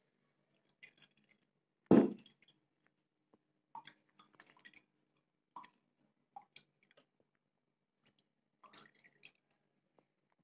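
A single loud knock about two seconds in, then soft scattered taps and scrapes of a steel spoon pressing blended beetroot pulp through a plastic tea strainer.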